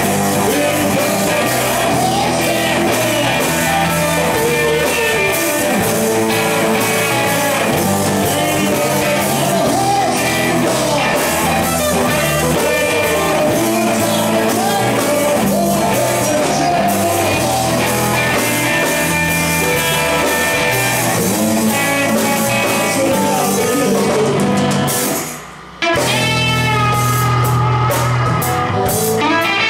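Live blues-rock band playing: electric guitars, an acoustic guitar, drums and a male lead singer on a microphone. About 25 seconds in the band stops dead for a moment, then comes back in.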